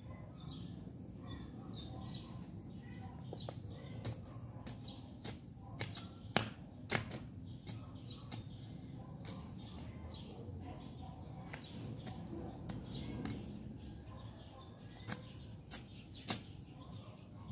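Irregular sharp knocks and clicks of a small hand hoe striking stones in rocky garden soil, over steady low background noise, with birds chirping faintly.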